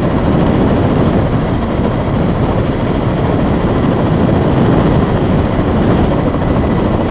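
Helicopter with coaxial twin rotors hovering low over a ship's bow, its rotor and engine noise loud and steady.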